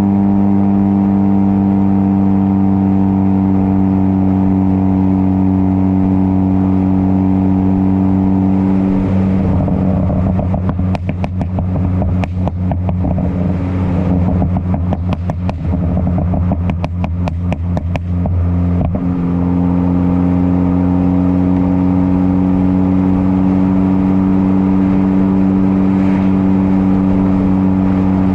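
Ford Focus ST turbocharged four-cylinder through a catless downpipe and muffler-delete exhaust, droning at a steady engine speed. For about eight seconds in the middle it breaks into a fast string of crackles and pops off the throttle, from its crackle tune, then settles back into the steady drone.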